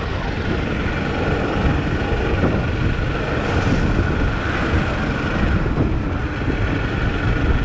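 Motorcycle riding at speed: steady wind buffeting on the microphone over engine and road noise.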